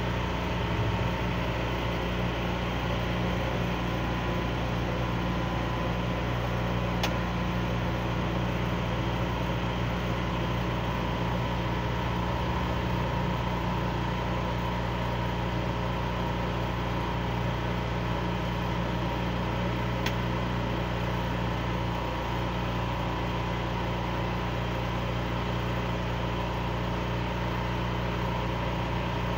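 An engine idling steadily, a low even hum with a constant higher tone above it. Two faint sharp clicks come about thirteen seconds apart.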